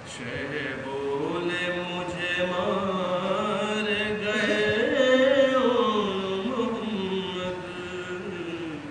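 A man's solo voice chanting a noha, a Shia mourning elegy, in long held lines with sliding pitch. It swells to its loudest about five seconds in, then falls away.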